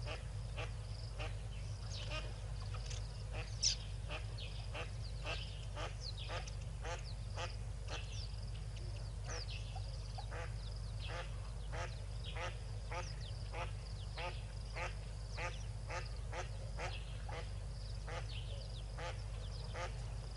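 Yellow-billed ducklings peeping continuously: short, falling, high-pitched calls, two or three a second, with one louder call about four seconds in, over a steady low hum.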